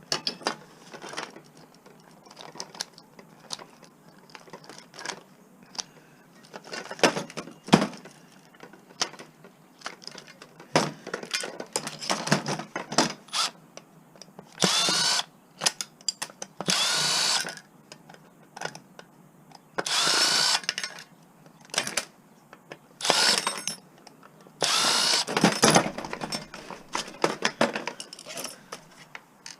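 Power drill driving screws in about five short runs in the second half, its pitch rising and falling with each run, while taking apart scrap for its metal. Clicks and knocks of parts being handled come between the runs.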